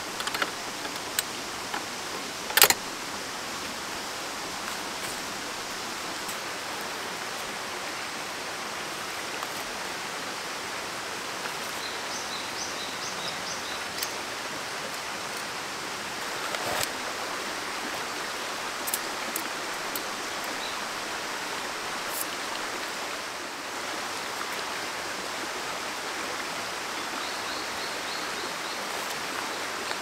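Steady rushing of a nearby stream, with a sharp clack of gear being handled a couple of seconds in and a few more faint knocks later. Short runs of high chirps come through around the middle and near the end.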